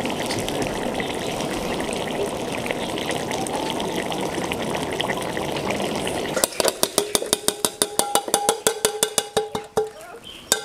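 Braised grass carp in thick sauce simmering in an open wok: a steady bubbling hiss. About six seconds in, it gives way to a quick run of sharp clicks lasting about three seconds.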